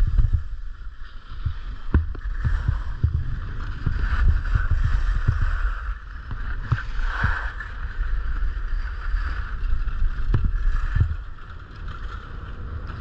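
Wind buffeting a body-worn camera's microphone as its wearer glides down a groomed ski run, with a steady hiss of edges on packed snow and frequent low thumps from bumps. It quietens about two seconds before the end as the rider slows.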